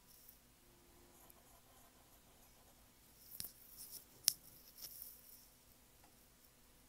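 Faint scratching of a graphite pencil drawing short strokes on cardstock paper: a brief flurry of strokes about halfway through, with one sharp tick among them.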